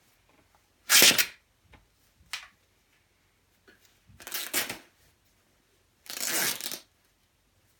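Shell fabric of a quilted down jacket being ripped by hand: three short tearing bursts, about a second in, around four and a half seconds and near six and a half seconds, the first the loudest, with a brief smaller rip in between.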